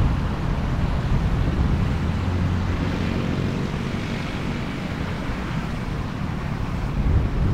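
A car's engine and tyre noise heard from inside the cabin while driving: a steady low rumble, with an engine hum standing out in the middle.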